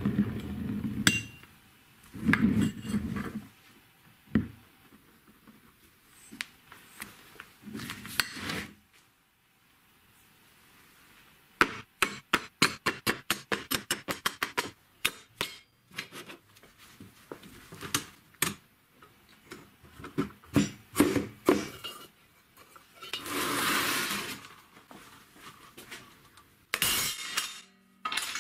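Lengths of square steel tube being handled on a workbench: dull knocks at the start, then a quick run of sharp metal clinks, about six a second, as the tubes knock together, with scattered clinks after. A scrape of about a second and a half comes later, and more clinks come near the end.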